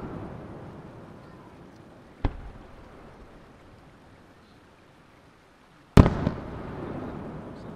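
Aerial firework shells going off. The rumbling echo of a burst dies away, a smaller sharp crack comes about two seconds in, and a loud bang about six seconds in rolls on in long echoes off the surrounding hills.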